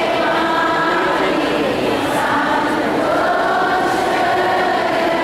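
A choir singing slowly, several voices holding long notes together.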